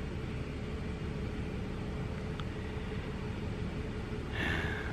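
Steady low background rumble with a faint constant hum, and a short breath near the end.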